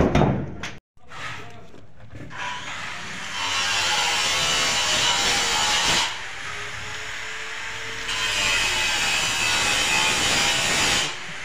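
A paper pattern rubbed hard by hand against a gypsum cornice moulding, a rasping scrubbing noise in two spells of about three and a half seconds each, transferring the design onto the plaster. There is a short loud knock at the very start.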